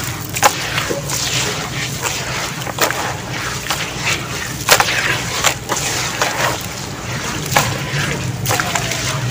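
Hands crumbling and squeezing a wet, gritty sand-and-cement paste in a tub of water: a wet squelching and sloshing with fine gritty crackle and a few sharper crunches at irregular moments.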